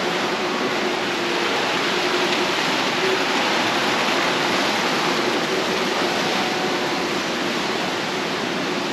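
Garden fountain jet splashing into a brick-walled pool, a steady rushing of falling water.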